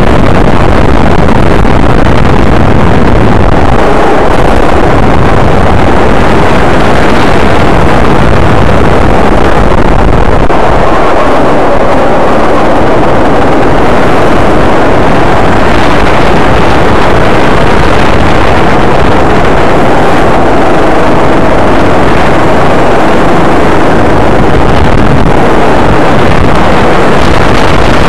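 Go-kart engine running hard and loud, close to the microphone, its pitch rising and falling as the throttle opens and closes through the corners and straights.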